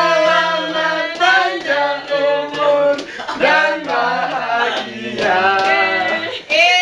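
A group of men and women singing a birthday song together, unaccompanied, in long held notes with short breaks between lines.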